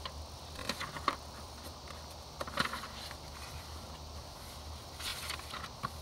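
Paper and cardstock pages of a handmade journal being turned and handled: a few short rustles and soft taps over a low, steady hum.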